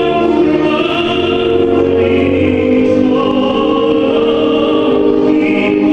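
Male tenor singing long held notes through a microphone over a choral and orchestral backing.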